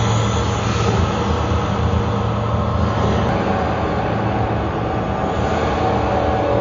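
Loud, steady rumbling drone of electronic sound art: a dense wash of noise over a low hum, like a passing train or aircraft.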